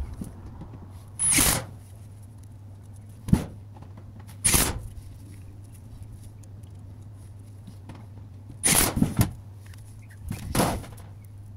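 About five short knocks and scrapes, one of them a quick double, with pauses of a second or more between them, over a steady low hum.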